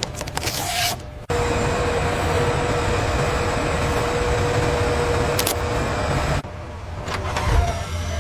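Steady mechanical whirring hum of a machine motor, with a single held tone. It starts suddenly a little over a second in, after a brief hiss and a few clicks, and cuts off suddenly about six seconds in, leaving quieter clicking.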